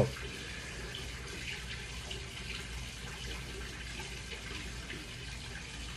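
Steady, faint background hiss with a low hum underneath, and no distinct events.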